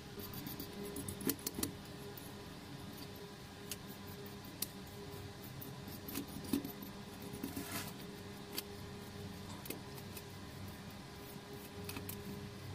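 Scattered light clicks and short scrapes of a metal model car body and a stiff brush knocking and rubbing against a stainless steel tray as loosened paint is scrubbed off, over a steady low hum.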